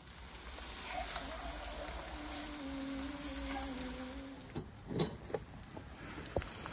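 A steady faint hiss with a wavering buzz for a couple of seconds, then a few sharp metallic clicks near the end as the chains holding the chickens in the tandoor are handled.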